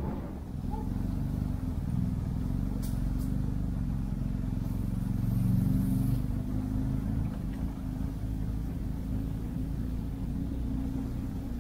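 Vehicle engine running steadily with a low drone, swelling a little about five to six seconds in.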